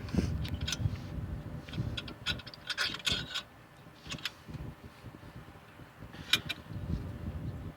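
Scattered metallic clicks and clinks from hand tools and brake caliper parts being handled, with a run of them in the first few seconds and a sharp one just after six seconds.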